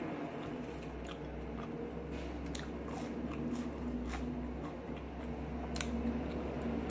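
A person chewing a mouthful of food, with scattered wet mouth smacks and clicks.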